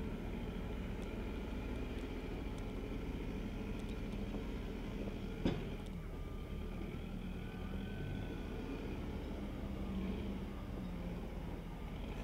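Engine of heavy earthmoving machinery running steadily at a distance, with one sharp click about five and a half seconds in.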